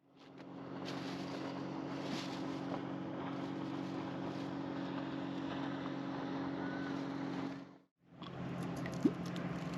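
Boat motor running steadily, a low even hum over a hiss of wind and water. It cuts out briefly about eight seconds in and then resumes.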